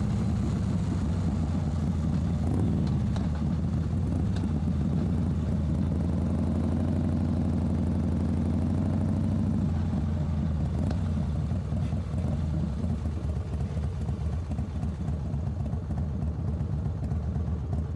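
Motorcycle engine on a slow, low-revving ride, a steady low drone with a gentle rise and fall in engine pitch about halfway through.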